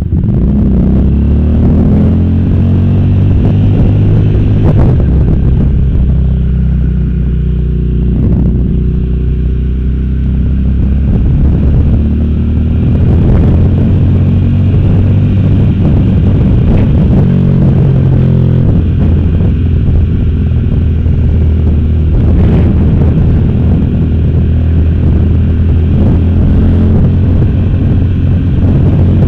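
Motorcycle engine running while ridden, heard from the rider's position; its note rises and falls with the throttle and gear changes.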